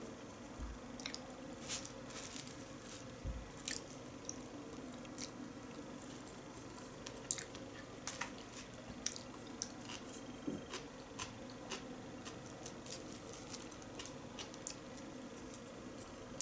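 Wet chewing and mouth sounds from eating sushi rolls, with many small scattered clicks and taps of wooden chopsticks picking food out of a plastic takeaway tray.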